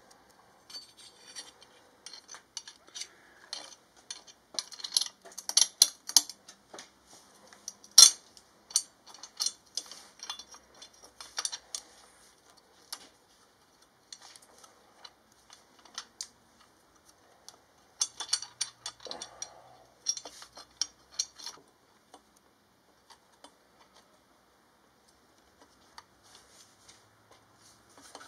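Hand tools clinking and clicking against metal in short irregular bursts while a stainless steel exhaust header pipe is fitted and bolted to the engine, with one loud clank about eight seconds in.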